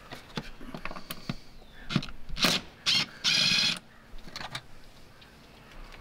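DeWalt cordless drill run in three short bursts a little past halfway, the last one about half a second long, working at a screw on a dryer vent hood. Light clicks and knocks of handling come before.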